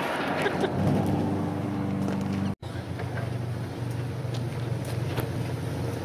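An engine running steadily, a low even hum, with a few faint knocks; the sound drops out for an instant about two and a half seconds in and the hum carries on.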